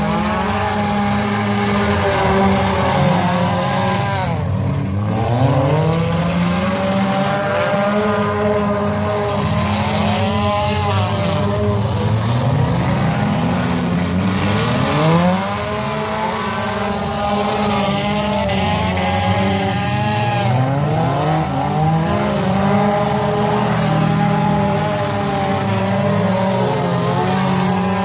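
Engines of several compact figure-8 race cars running hard together, their pitches rising and falling again and again as the cars accelerate and back off around the course.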